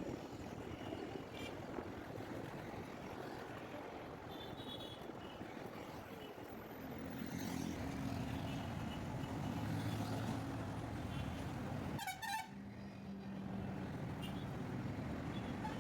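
Busy city road traffic: vehicle engines running, with a few short horn toots and a brief high-pitched beeping about twelve seconds in.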